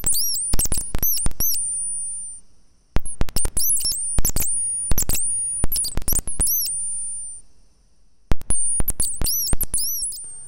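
Synthesized bird chirps from a Serge Triple Waveshaper patch on a 5U modular synthesizer, with random gates firing envelopes. Rapid, very high-pitched chirps swoop down and back up, each starting with a click, and some hold briefly as a thin whistle. They come in three flurries with short pauses between.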